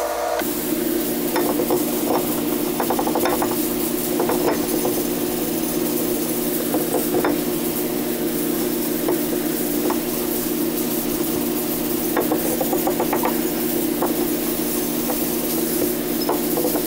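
Irregular bursts of short scratchy rubbing strokes as gun bluing is worked onto the pitted steel of a double-bit axe head with a swab and cloth. Under them runs a steady low machine hum.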